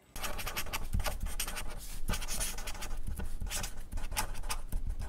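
Handwriting sound effect: a rapid run of irregular scratchy writing strokes on a surface, going on without a break.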